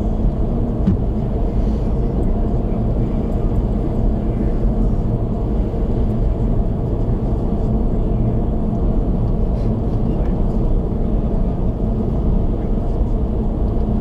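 A car cruising at highway speed, a steady low rumble of tyre, road and engine noise heard inside the cabin.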